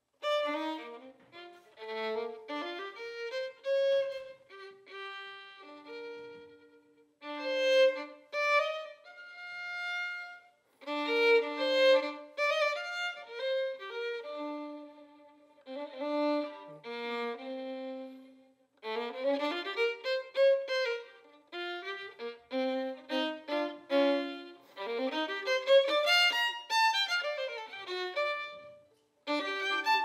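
Jazz violin playing a solo melodic line with no piano heard: bowed phrases with slides between notes, broken by short pauses between phrases.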